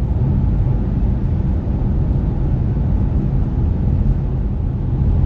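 Road and wind noise inside a moving car: a steady, even low rumble with a fainter hiss above it.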